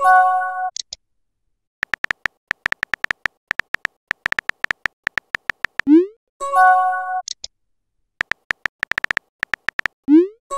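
Chat-app sound effects. A short chime of several steady tones plays at the start. Then come runs of quick keyboard-tap clicks, several a second, and a short rising swoop with another chime about six and a half seconds in as the next message is sent. More tapping follows, with a second swoop just before the end.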